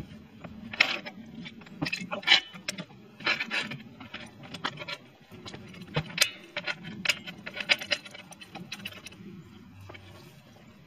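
Irregular clinks, knocks and scrapes of metal things being handled, loudest in the first half and thinning out near the end.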